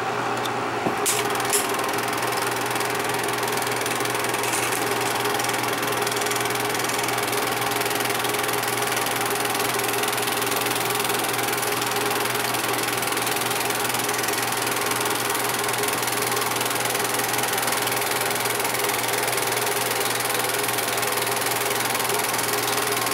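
8 mm film projector running: a steady mechanical clatter from the film advance over a constant hum, with a few sharp clicks in the first second and a half.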